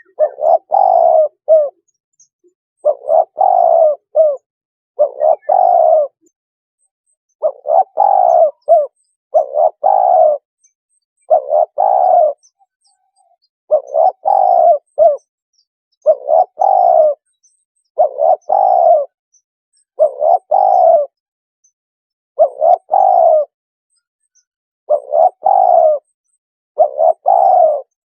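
Spotted dove cooing: a short phrase of two or three notes, repeated about every two seconds.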